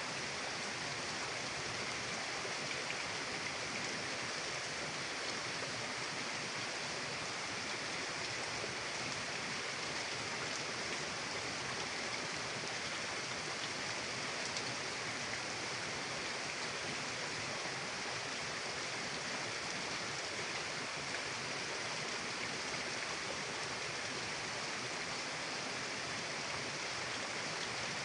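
Steady rushing of a flowing mountain river, an even hiss of water with no breaks or changes.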